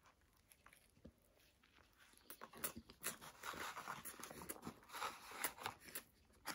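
A person chewing a mouthful of Big Mac close to the microphone: faint, irregular chewing and crunching sounds, starting about two seconds in.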